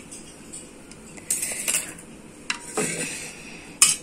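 Steel knife clinking and scraping against a steel plate and the aluminium pressure-cooker pot as boiled potatoes are moved onto the plate: a few sharp metal clinks with short scrapes, the loudest clink near the end.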